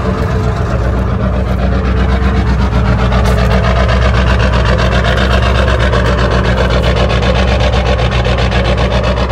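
1997 Ford F-350's 7.3 L Power Stroke V8 diesel idling just after a cold start, heard at the exhaust outlet: a loud, steady, rhythmic cackle.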